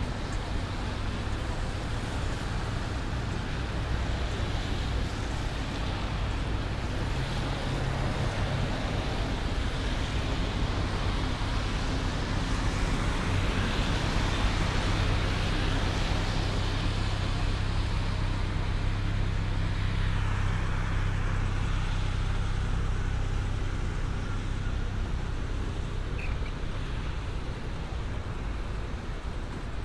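City traffic on a wet road: cars and taxis passing with tyre hiss on wet asphalt over a low engine hum, growing louder around the middle and easing off toward the end.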